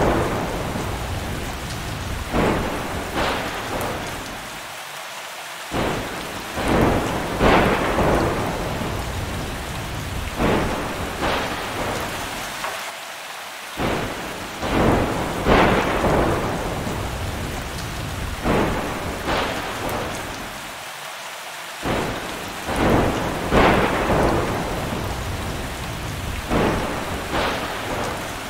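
Thunderstorm: steady heavy rain with thunder cracking and rumbling every second or two, each clap fading out.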